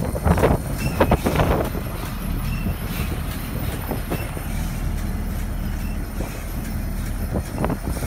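Tractor engine running steadily, hitched to a New Idea round baler with its tailgate raised, with a few knocks in the first second and a half.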